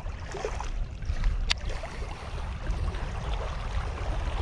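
Wind buffeting the microphone as a steady low rumble, with one sharp click about a second and a half in.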